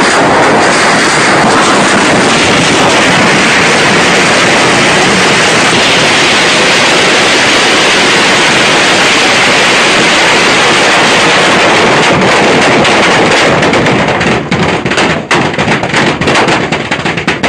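Dense, continuous barrage of exploding fireworks crackling at full loudness, breaking up into separate sharp bangs about fourteen seconds in.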